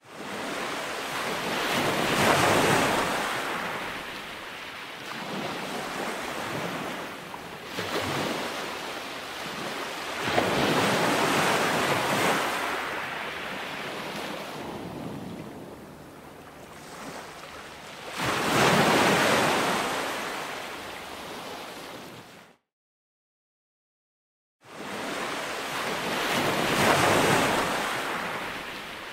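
Ocean surf: a wash of waves that swells and fades about every eight seconds, cutting out completely for about two seconds near the end.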